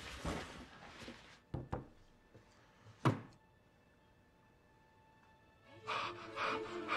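Two soft knocks, then a single loud thud about three seconds in, followed by a hush; background music with a steady beat comes in near the end.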